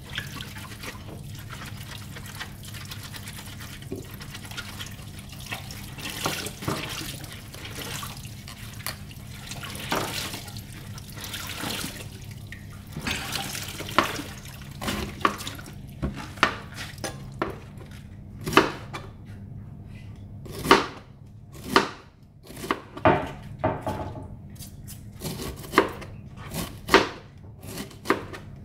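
Chef's knife cutting a half cabbage on a plastic cutting board. First come scattered cuts, as the hard core is cut out, over a steady water-like hiss. From about halfway there is a run of sharp knife strikes on the board, one or two a second, as the cabbage is shredded.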